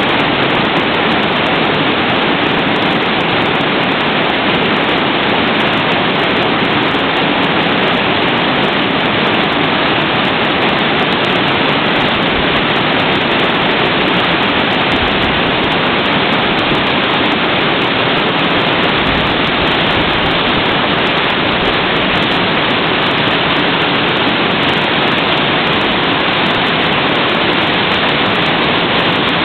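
Waterfall: water falling in a steady, even rush.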